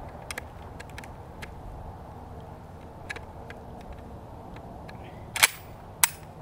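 Metal clicks and rattles from an AK-pattern pistol and its magazine being handled, with a loud metallic clack about five and a half seconds in and a sharp click just after.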